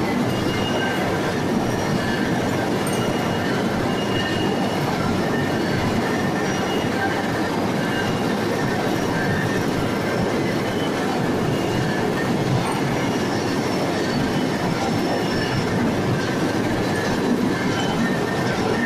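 Wire stranding machine running steadily, its rotating cage and bobbins giving a continuous mechanical clatter and rumble, with short high squeaks coming and going.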